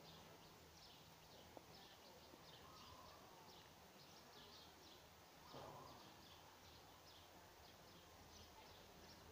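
Near silence outdoors: faint rapid high chirps from small animals, several a second, over a low steady hum, with a brief louder rush of noise a little past halfway.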